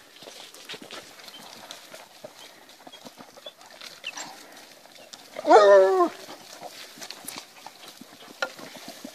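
A petit bleu hound bays once, about five seconds in: a loud, wavering howl lasting under a second. Faint rustling and crunching of the pack moving through grass and gravel runs around it.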